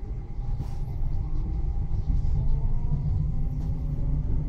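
Electric S-train pulling away from a station, heard from inside the carriage: a low rumble with faint motor tones slowly rising in pitch as it picks up speed.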